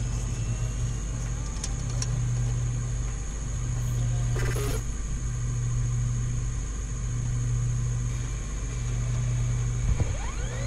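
Low, pulsing electronic drone with a thin steady high whine above it, broken by a short crackly glitch about four and a half seconds in and a rising sweep near the end.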